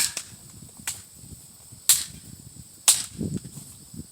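A series of sharp cracks about a second apart, four in all, the second one fainter.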